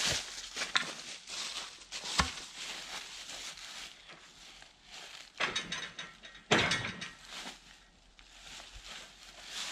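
Footsteps in dry leaves, then two bursts of ratcheting metal clatter about five and a half and six and a half seconds in, from hand-worked parts of a portable band sawmill.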